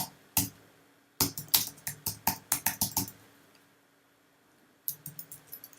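Typing on a computer keyboard: a quick run of about nine keystrokes, a pause, then another short burst of keystrokes near the end.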